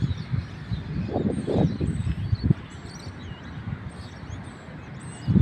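Outdoor storm ambience: a low, uneven rumble that swells and fades in gusts, loudest about a second in, with small birds chirping faintly above it.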